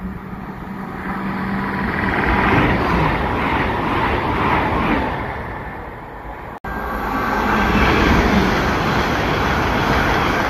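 Passenger trains passing through a station at speed: a loud rushing rumble of wheels on rail that builds and then fades. After an abrupt break, a GWR train passes close along the platform line.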